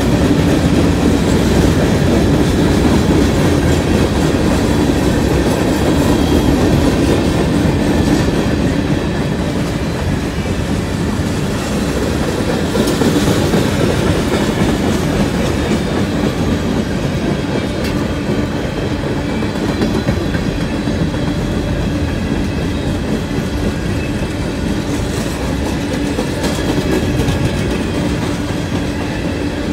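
Covered hopper cars of a freight grain train rolling past, their steel wheels on the rails making a loud, steady rumble.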